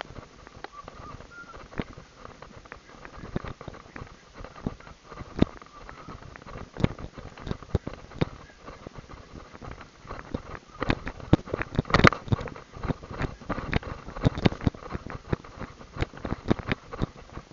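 Hooves of two trotters in harness on a dusty dirt track: an irregular patter of knocks that gets busier and louder about ten seconds in.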